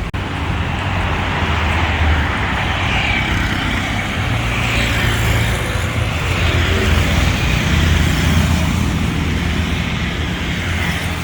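Steady street traffic noise: passing cars and motorbikes with a constant engine hum.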